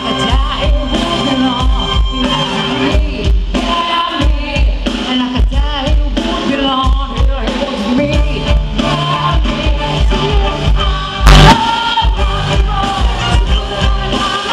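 Live rock band with chamber orchestra playing a rock song over a steady drumbeat, a woman singing lead with backing singers. A sudden loud hit cuts through the music about eleven seconds in.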